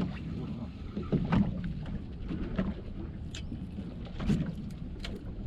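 Fishing boat's engine running at a steady low hum, with a few short knocks and clicks on board.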